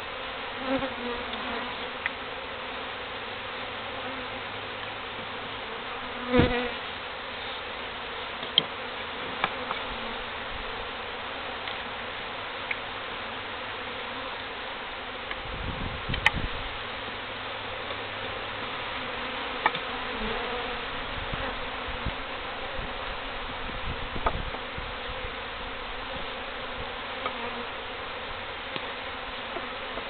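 A large, disturbed colony of feral honey bees buzzing steadily in the air all around. A thump comes about six seconds in, and a short cluster of knocks around the middle.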